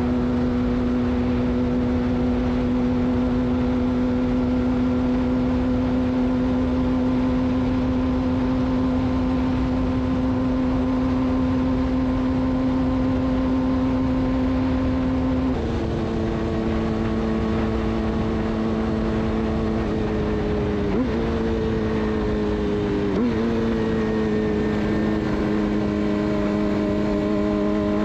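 Suzuki GSX-R600's inline-four engine through a de-catted Yoshimura exhaust, running at steady high revs while the bike rides along, with rushing wind. About halfway through the revs drop a little and hold there, with two brief dips in pitch near the end.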